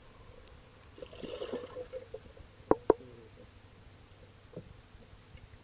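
Water sloshing and gurgling, muffled as heard through an underwater camera, as hands lower a peacock bass into the water and release it. Two sharp knocks come close together a little under three seconds in, with a fainter one later.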